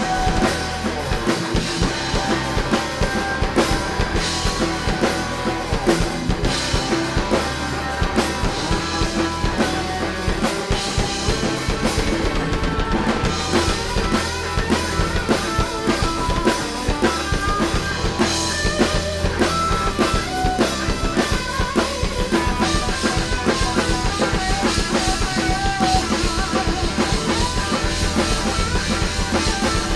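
A rock band playing live, with the drum kit's bass drum and snare keeping a steady driving beat under the other instruments.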